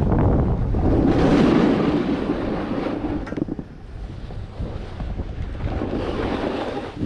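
Wind buffeting the microphone and the rushing hiss of riding down through powder snow. It is loudest for the first three seconds, with a swell about a second in, then drops and swells again near the end.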